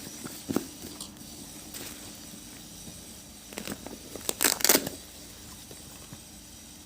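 Packaging being handled: scattered rustles and clicks, with a louder burst of crinkling about four and a half seconds in.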